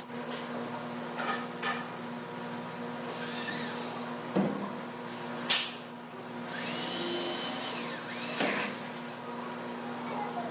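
Power tool whirring briefly, its whine rising as it spins up and falling as it stops, among a few sharp knocks over a steady machine hum.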